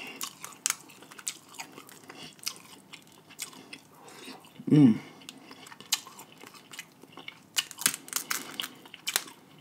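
Chewing and biting on snow crab meat, with crisp clicks and crackles as the crab shell is picked apart by hand. There is a short vocal sound about halfway through.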